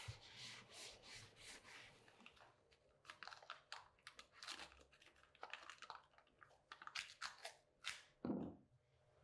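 A cloth rubbing over a small metal part, then a run of short, sharp crackling, tearing sounds as masking tape is pulled off its roll and torn, ending in a dull thump near the end.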